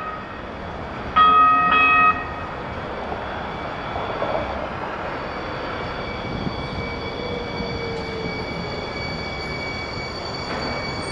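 Newark Light Rail Kinki Sharyo light rail vehicle approaching and slowing into the stop: a rolling rumble with a high steady whine and a tone that falls slowly in the middle. A loud horn sounds for about a second near the start.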